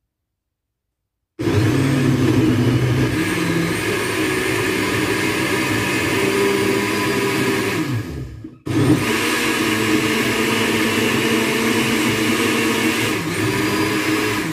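Electric countertop blender with a glass jar starting up about a second and a half in and running steadily as it purées fresh fruit. Just past halfway the motor winds down almost to a stop, then starts again and runs on.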